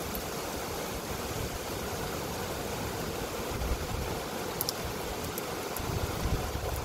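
Heavy rain pouring steadily, with low rumbling gusts of wind swelling about halfway through and again near the end, and a few faint sharp clicks.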